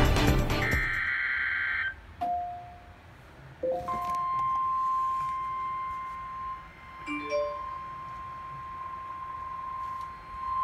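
Intro music ends on a held chord about two seconds in, followed by a few short beeps. About four seconds in, a single steady tone near 1 kHz starts and holds: the NOAA Weather Radio 1050 Hz alert tone that comes before a broadcast warning message.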